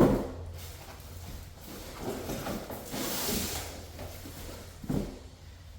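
Ceiling fan parts and packaging being handled: a heavy thud at the start, then rustling, and another knock near the end.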